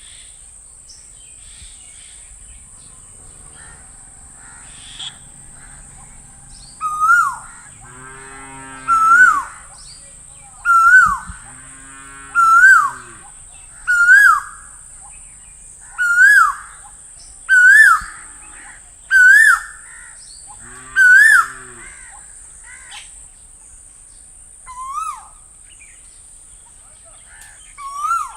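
Asian koel calling: a loud two-part 'ko-el' call repeated about every one and a half to two seconds in a series, each note rising then dropping sharply, about eleven in all. A lower-pitched call sounds three times under the series, each about a second long, over a steady high hiss.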